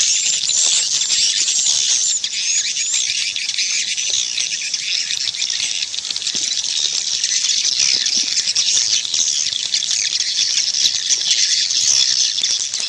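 A dense chorus of edible-nest swiftlets twittering, many short high chirps overlapping without a break. It is a swiftlet call track of the kind played to draw the birds to a nesting house.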